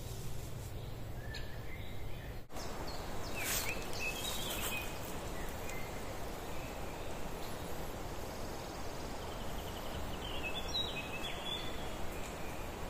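Steady outdoor background noise in woodland, with a few short bird chirps about three seconds in and again near the end. The sound breaks off abruptly about two and a half seconds in and resumes without the low hum that came before.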